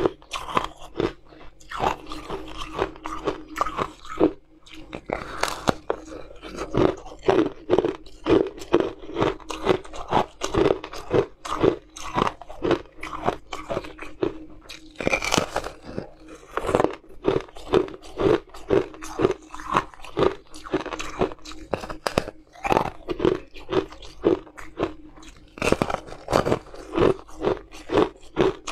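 Close-up crunching and chewing of frozen blue ice bitten off a slab: a steady run of crisp crunches, about two a second.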